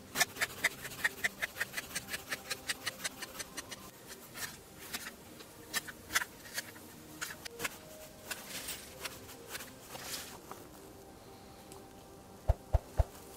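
Kitchen knife chopping onion on a plastic cutting board: a fast, even run of sharp knocks, about five a second, for the first few seconds, then slower, irregular cuts. Near the end come three dull knocks.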